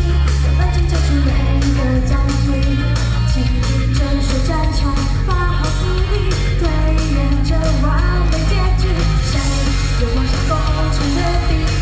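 A woman singing live into a handheld microphone over loud pop-rock backing music with a heavy bass line.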